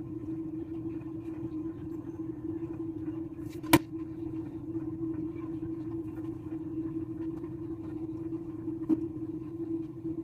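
A steady low hum with one sharp click or knock about four seconds in and a fainter one near the end.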